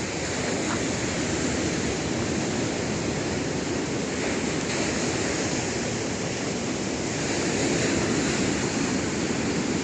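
Black Sea surf washing steadily onto the shore, with gentle swells in loudness as waves break, the loudest a little before the end, and a little wind on the microphone.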